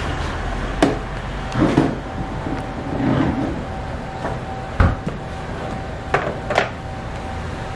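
Clatter of food prep: a few sharp knocks and clicks from plastic food-container lids and utensils against a wooden counter, the loudest a dull knock about five seconds in and a quick pair of clicks near the end as a tub lid is opened. A steady electrical hum runs underneath.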